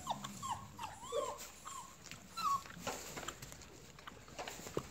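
Six-week-old Doberman puppies giving several short, high yips and whines in quick succession while tugging and play-fighting over a rope toy. After about two and a half seconds the calls stop and scattered knocks and scuffles follow.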